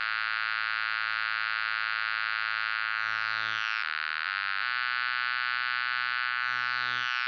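Synthesizer holding long, bright, buzzy chords. The low notes step down briefly about halfway through, then return, and a faint falling sweep runs through the upper tone twice.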